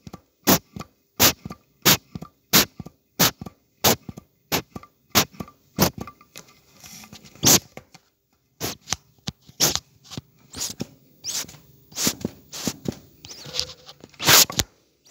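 Hand-milking squirts from a model cow's teats hitting the liquid in a steel pail, in a steady rhythm of about one squirt every two-thirds of a second. After a short pause the squirts come less evenly, and one near the end is the loudest.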